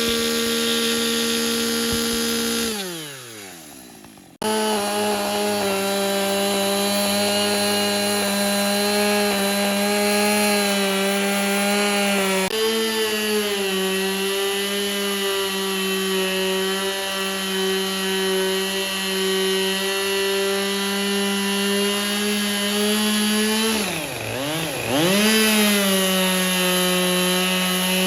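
Power tool motor running at high speed through timber. It winds down with a falling pitch about three seconds in, then runs again steadily. It sags twice in pitch under load around 24 seconds, then picks back up.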